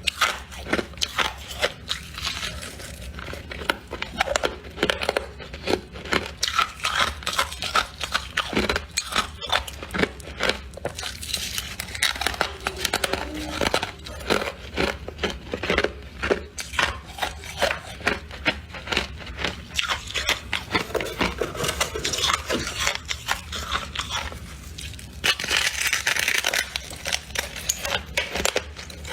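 Close-miked biting and chewing of squeaky freezer frost: a fast, uneven run of sharp crunches, with a rougher, hissier crunching stretch near the end.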